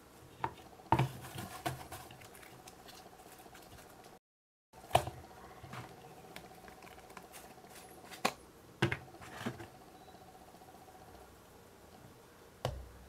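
Hands squishing and handling slime in a bowl. A scattering of sharp clicks and taps. The sound cuts out completely for about half a second, a little over four seconds in.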